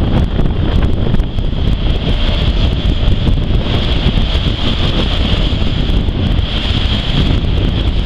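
Double-stack intermodal freight cars rolling past: steel wheels on rail make a steady low rumble, with a high whine that swells and fades every couple of seconds. Wind buffets the microphone.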